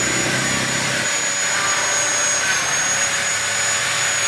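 Handheld angle grinder running at speed with a steady high whine, its disc cutting into a motorcycle's rear fender.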